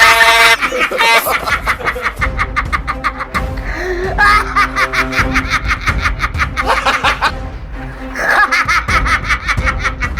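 Rapid laughter over background music, opening with a loud, steady tone in the first half-second.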